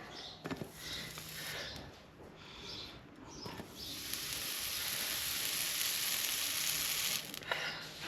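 A few short scraping strokes on a horse's hoof, then a steady hiss lasting about three and a half seconds from about halfway in.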